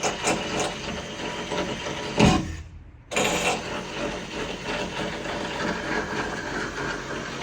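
Duct tape being pulled off the roll and wrapped around metal roof-frame joints: a crackling, rasping noise with a knock about two seconds in and a brief break just before three seconds.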